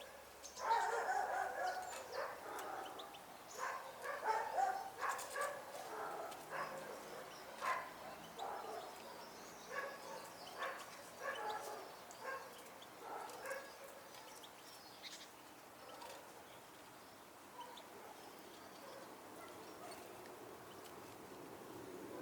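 A dog barking repeatedly in short barks, thickest in the first half and dying away after about fourteen seconds.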